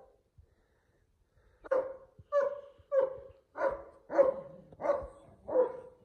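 A dog barking in a quick, steady series of about eight barks, starting about a second and a half in.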